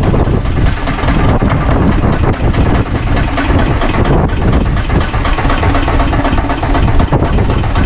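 Small fishing boat's engine idling with a steady low rumble.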